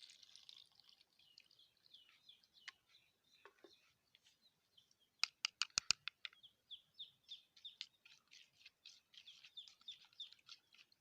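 Small birds chirping: many short high chirps, about three a second through the second half. About five seconds in comes a quick run of five or six sharp clicks, the loudest sounds here.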